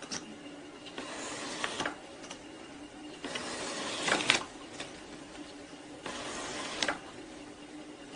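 TK-801D electric leather skiving machine running with a steady low tone, while a leather strip is shaved by its round bell knife three times, each pass a hiss of about a second ending in a sharp click.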